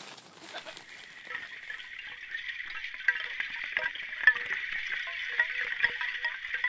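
Candle ice on a lake tinkling: many small, irregular clinks and pings over a steady hiss, beginning about a second in.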